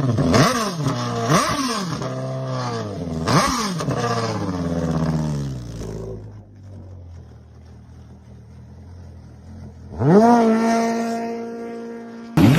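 An engine revving in quick blips, each rising sharply and then falling away, three times. After a quieter stretch it revs up sharply about ten seconds in and holds at a steady high speed.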